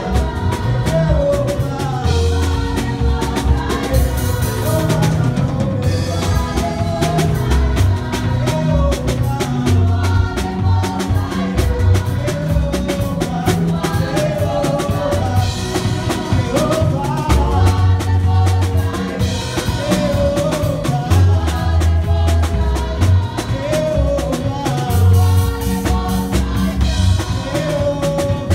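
Church worship song played by a band: a drum kit keeps a steady beat over heavy bass, with voices singing the melody.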